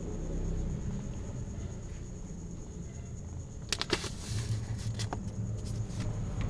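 A low, steady rumble in the background. About four seconds in comes a short flurry of clicks and paper rustling as a hand reaches in and the kitten's paws move on the paper sheets, with a few scratches after.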